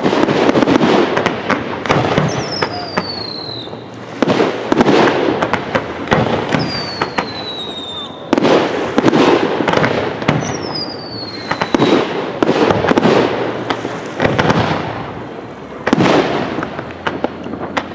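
Aerial fireworks display: shells bursting in volleys every couple of seconds, each bang followed by dense crackling, with a falling whistle about every four seconds.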